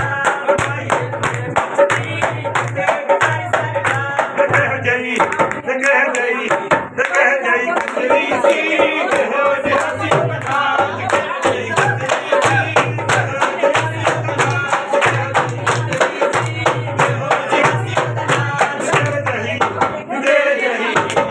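Punjabi folk singing for a jaggo, with rhythmic hand clapping and a low drum beat about once a second. The beat drops out for a few seconds in the middle.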